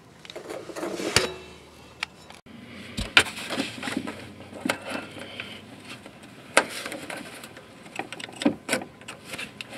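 Irregular clicks, taps and scrapes of fingers and a small pick working the plastic quick-connect clip on a Duramax's factory fuel line, pressing its tabs to release it.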